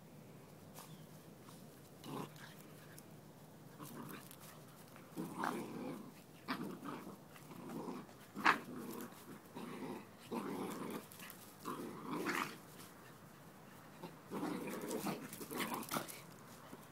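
Cockalier and chihuahua puppies play-fighting, with short growls over and over from about two seconds in until near the end.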